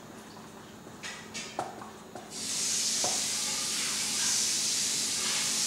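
A few short scratches of a marker writing on a whiteboard, then a loud, steady hiss that sets in about two seconds in and holds.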